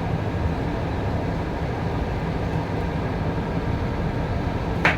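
Steady low drone of heavy harbour machinery during container loading, with a single sharp click near the end.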